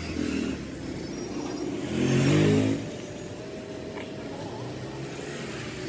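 A motor vehicle's engine revs briefly, rising a little in pitch about two seconds in, over a steady background hum.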